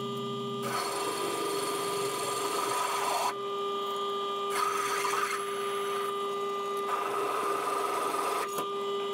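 Milling machine spindle running with a large twist drill cutting through steel box section: a steady hum, with the rough cutting sound coming in three stretches as the drill feeds in.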